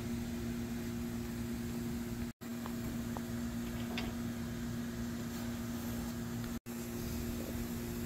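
Steady mechanical hum holding two low tones over a rumble. It cuts out completely for an instant twice.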